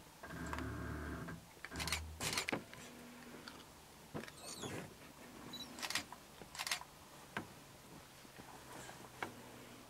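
About ten sharp, irregular clicks over a faint background, with a low rumble through roughly the first two seconds.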